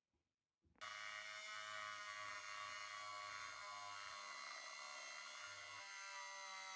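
Small handheld rotary tool with a 220-grit sanding drum starting up about a second in and running with a steady high whine while it sands the steel blade of old scissors.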